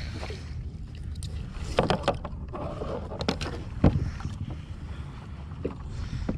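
Wind rumbling on the microphone over water on a kayak, with several sharp knocks and clatters, the loudest about four seconds in.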